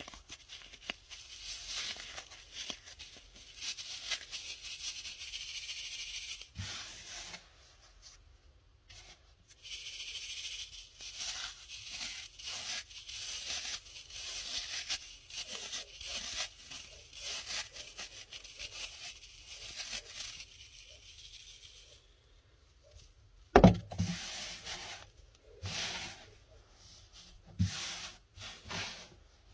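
Baking-soda powder being sifted through a fine mesh sieve: a soft, steady hiss in two long stretches with a short pause between. Near the end comes one sharp knock, the loudest sound, followed by a few scattered rustles and taps.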